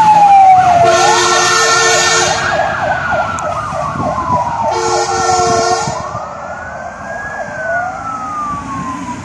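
Fire engine sirens wailing in slow falling and rising sweeps, with two blasts of a vehicle horn about a second in and about five seconds in. The sirens fade as the engines drive away.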